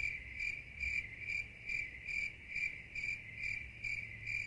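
Insect chirping, one high note repeated evenly about twice a second. It cuts in and out abruptly, as an edited insert.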